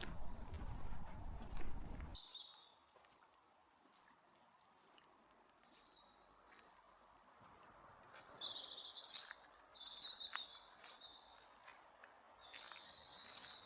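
Small songbirds chirping and singing in short high phrases, busiest in the second half. For about the first two seconds a louder low rumbling noise plays under them, then stops abruptly.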